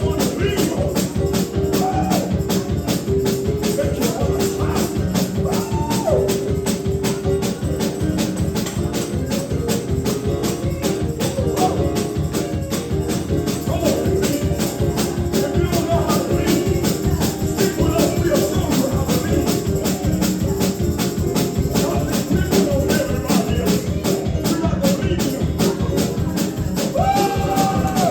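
Live gospel praise-and-worship music: a tambourine shaken and struck in a fast, steady beat over sustained instrumental chords, with voices singing.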